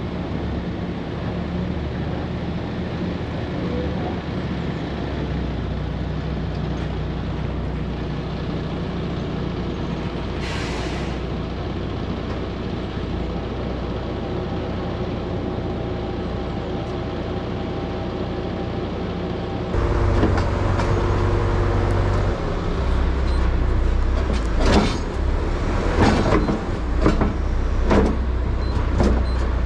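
Heavy truck engine running steadily, with a short hiss of air about ten seconds in. Just before twenty seconds the engine sound turns louder, and several sharp knocks and clanks follow near the end.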